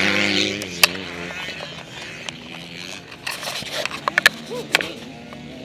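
A dirt bike engine drones steadily and fades out after about a second. Then come scattered knocks and clicks as a helmet camera is picked up off the ground and handled, with a cluster of them a little past the middle.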